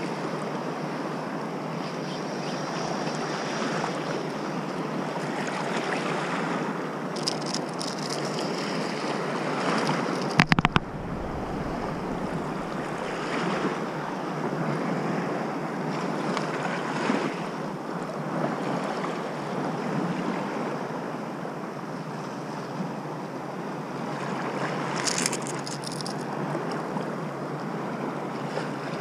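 Small sea waves washing over the shallows, with wind buffeting the microphone, rising and easing in slow swells. A single sharp, loud knock comes about ten seconds in, and short high rattles come twice.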